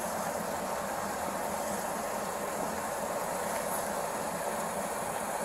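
Steady hissing background noise of idling vehicles, even and unbroken throughout.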